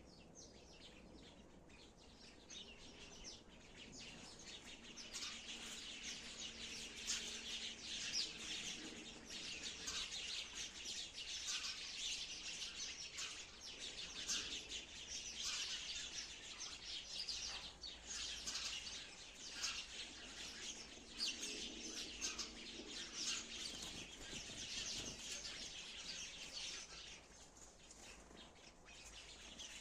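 Sparrows chirping continuously, many short chirps overlapping with no pause.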